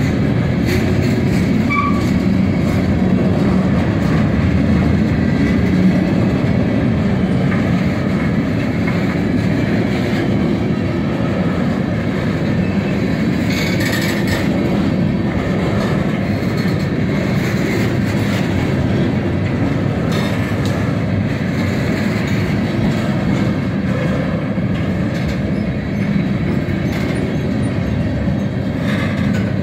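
Freight train gondola cars rolling past at close range: a steady rumble of steel wheels on the rails, with a few sharper clacks along the way.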